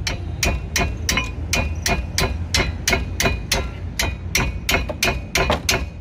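Ratchet wrench clicking in a steady run of sharp metallic clicks, about three a second, as a brake caliper bracket bolt is tightened. A steady low hum runs underneath.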